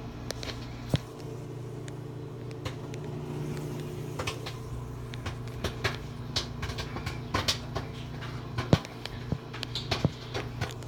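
Samsung microwave oven running with a steady hum while a bag of popcorn pops inside it: sharp single pops at irregular intervals, sparse at first and more frequent after about four seconds.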